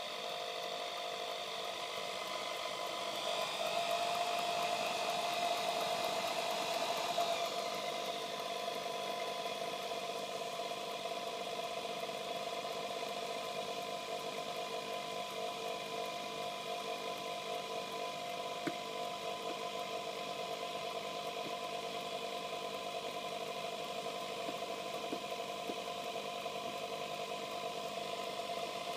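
Small watchmaker's lathe motor running steadily with a whine. It grows louder about three seconds in and eases back near eight seconds, then runs on evenly, with a faint click or two.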